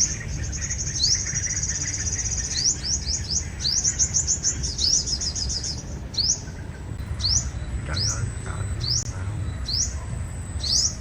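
Sunbirds calling: high, sharp upswept chips, first in quick trilled runs, then from about halfway as single chips roughly once a second.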